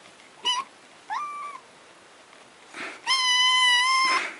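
Grey-and-white kitten meowing: a short high meow and a rising meow in the first second and a half, then one long meow near the end.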